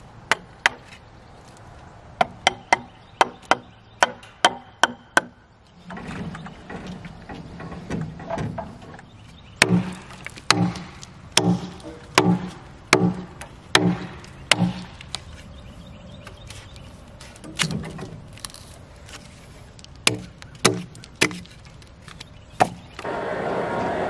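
Hatchet chopping bark off a pine log, a series of sharp wooden strikes coming in runs with short pauses between. Near the end a steady running noise starts up.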